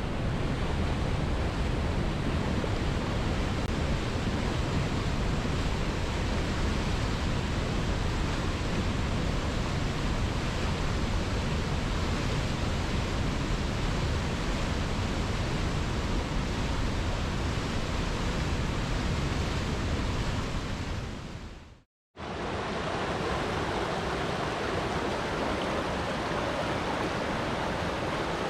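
Steady rush of flowing river water. About three-quarters of the way through it fades out to silence for a moment, then returns with less low rumble and more hiss.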